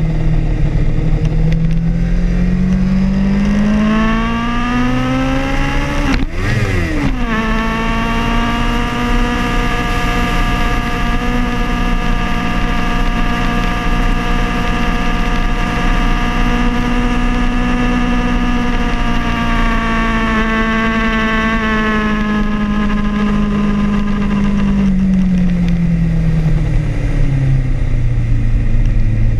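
Sport motorcycle engine at speed. The revs climb for the first several seconds, then drop briefly at an upshift about six seconds in. It holds a steady high note for about fifteen seconds, then the revs fall away as it slows near the end, with wind rush on the microphone.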